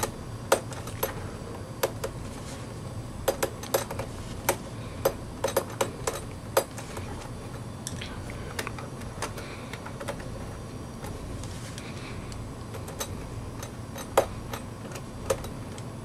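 Irregular light metallic clicks and taps of a screwdriver against the screw and aluminum memory-bay cover plate of an iMac. The loose plate is being nudged into place and its screw started.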